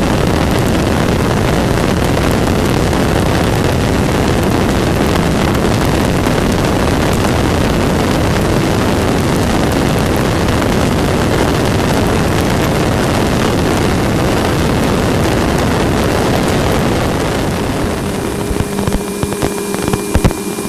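Space-probe data sonification: a steady, dense rushing static with a faint high whistle running through it. Near the end the static thins and turns patchy, and a low steady hum comes in.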